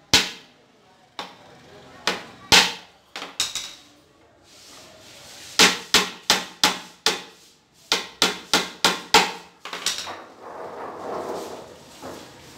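Hammer tapping on a laminated wood panel of a box being assembled: sharp knocks, a few scattered at first, then a quick run of about three taps a second. Softer handling noise follows near the end.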